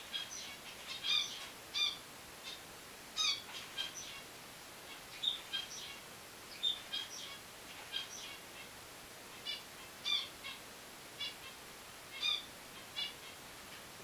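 Finches chirping: short, bright call notes, some single and some in quick clusters of two or three, about one or two a second, over a faint steady hiss.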